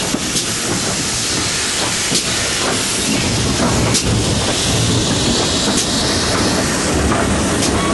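Steam train moving slowly: a steady rumble and steam hiss, with a wheel click over rail joints about every two seconds. The hiss grows stronger in the middle.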